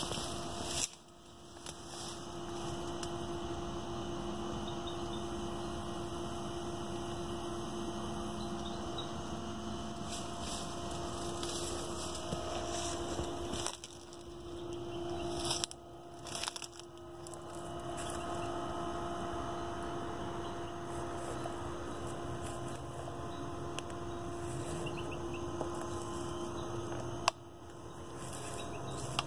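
A steady low hum throughout, broken by a few brief knocks and rustles, about a second in, twice in the middle, and once near the end.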